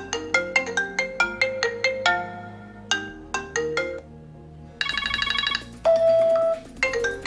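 Phone ringtone playing: a melody of short mallet-like notes, then a quick trilling ring about five seconds in and a single held tone, like ringtones being previewed one after another.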